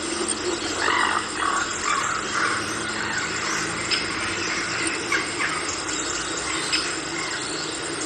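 Tropical rainforest ambience: a dense, steady din of wildlife. A run of animal calls comes in the first few seconds, and a few short sharp calls follow later.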